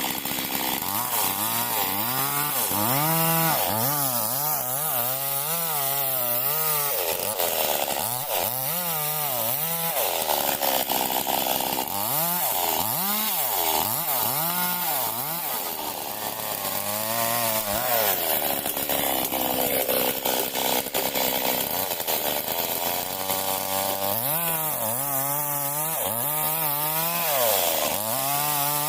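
Stihl MS 382 two-stroke chainsaw cutting wood, its engine speed rising and falling over and over as it works through the cut.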